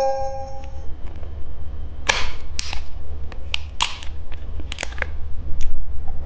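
Hard candy being crunched and snapped close to the microphone: a run of sharp, irregular cracks starting about two seconds in. A brief ringing tone fades out in the first second.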